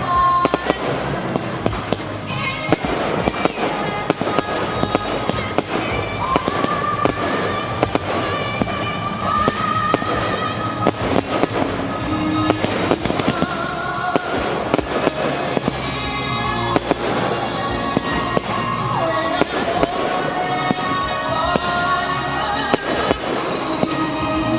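Fireworks going off in a dense, continuous run of bangs and crackles, with a song with singing playing over them.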